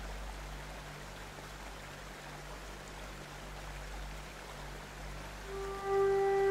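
Steady rushing of water over a low steady hum. Sustained musical notes come in near the end.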